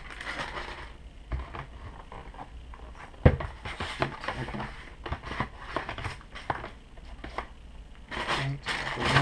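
Paper sheets and booklets rustling and being handled over a cardboard box, with scattered light knocks and clicks. The sharpest click comes about three seconds in.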